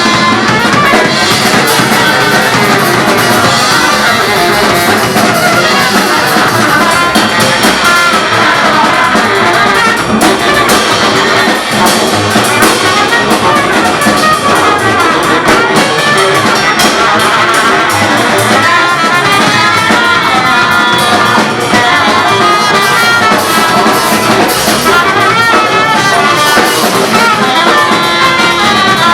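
A band playing live, loud and without a break, with horns and a drum kit prominent.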